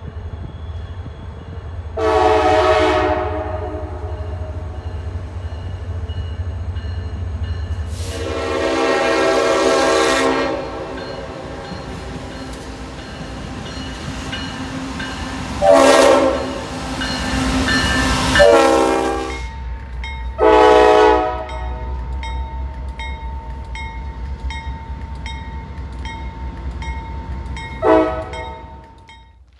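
Diesel freight locomotives sounding their air horns, six blasts of varying length, the longest early on and the shortest near the end, over the low rumble of the diesel engines. In the last third a railroad crossing bell rings with an even, repeating stroke.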